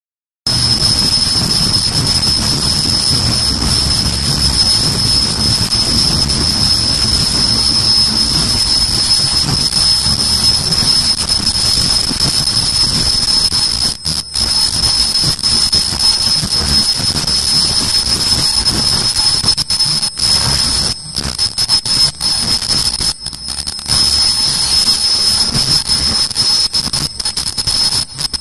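High-speed automatic face mask making machine running: continuous mechanical noise with a steady high-pitched whine over a low rumble, dipping briefly a few times in the second half.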